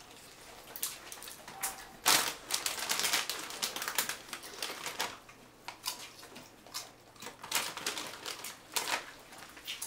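A bull terrier crunching tortilla chips, mixed with the crinkle of a foil chip bag as a hand reaches into it. A dense run of sharp crackling crunches starts about two seconds in and lasts a few seconds, followed by scattered single crunches.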